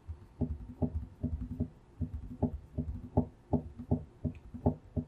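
A run of soft, dull knocks, about three a second in a slightly uneven rhythm, as from tapping on a tabletop.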